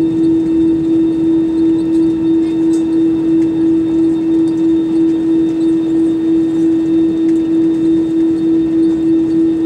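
Steady cabin drone of an Airbus A320-200 on the ground after landing: one strong low hum with a slow, regular swell in loudness, over a steady hiss of air.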